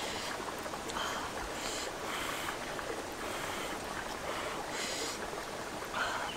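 Water sloshing and splashing in repeated strokes, every second or so, over a steady wash of noise.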